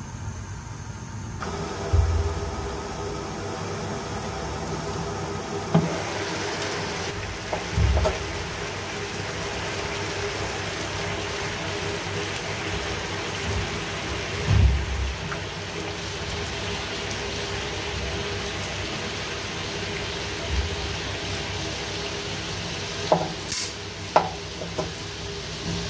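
Water boiling hard in an open pan, a steady bubbling hiss that builds over the first seconds. Several low thumps come through it, and a couple of sharp clicks near the end, as the pan is handled and pieces of meat go into the water.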